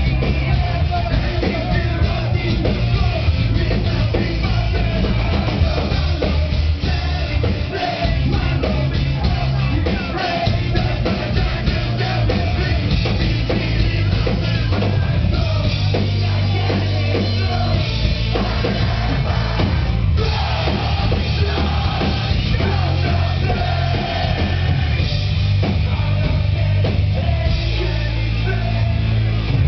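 Metal band playing live: heavy drums and bass under loud guitars, with sung and shouted vocals.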